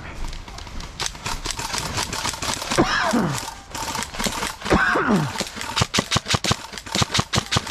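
Airsoft guns firing: irregular sharp cracks of shots, settling near the end into steady semi-automatic fire at about four to five shots a second. Two falling, whistle-like sounds come about three and five seconds in.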